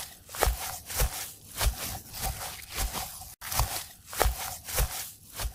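Footsteps pushing through tall grass: a rhythmic rustling swish with a soft low thud on each step, a little under two steps a second.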